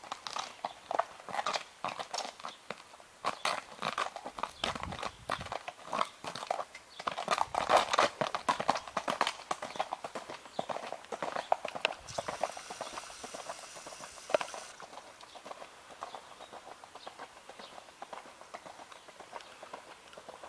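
Hoofbeats of a horse moving at a steady gait, a rapid run of sharp strikes that is loudest in the first half and fades away after about fifteen seconds.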